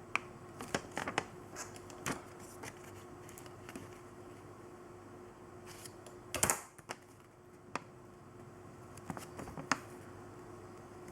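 Scattered sharp clicks and small knocks at irregular intervals, with a louder cluster about two-thirds of the way through, over a faint steady hum.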